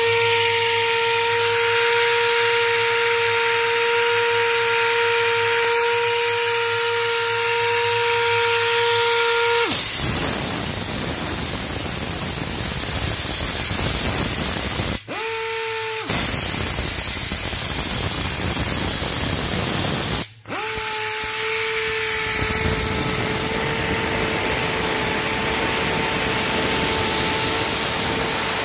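Portable in-situ crankshaft grinder working on a crankpin journal of a MAN B&W 9L27/38 engine crankshaft: a steady high motor whine over a hiss, giving way about ten seconds in to a broader, rougher rushing grind. The sound cuts out briefly twice, and the whine comes back after each break.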